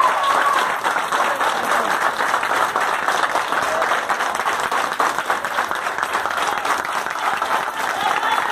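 A group of people applauding steadily, many hands clapping at once.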